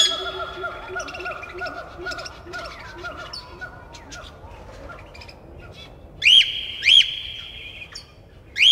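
Animal calls: a run of short, quick, repeated calls fading away over the first few seconds, then three loud calls, each sweeping up and down and held as a high steady note, about six, seven and eight and a half seconds in.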